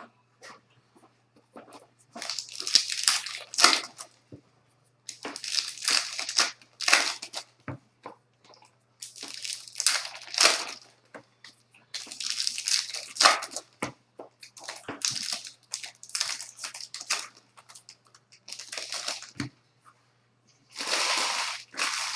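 Trading-card pack wrappers being torn open and crinkled by hand. The crackly rustling comes in about seven separate handfuls, each a second or two long.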